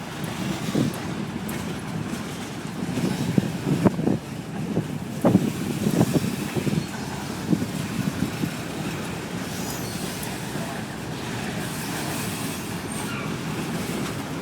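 Freight train cars rolling past on the rails in a steady rumble, with irregular knocks and clunks from the wheels during the first half, then evening out.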